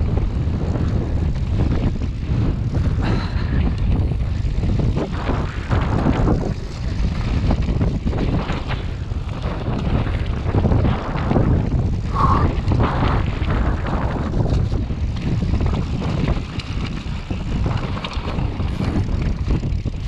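Mondraker Chaser e-mountain bike descending a rough forest trail at speed: a continuous rumble and rushing wind on the microphone, broken by uneven knocks and rattles as the bike hits roots, stones and drops.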